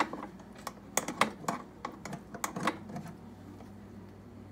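Metal rotisserie spit clicking and knocking against the inside of a Pampered Chef air fryer as it is fitted into the notches that hold it. There is a string of sharp, irregular clicks over the first three seconds, then they die away.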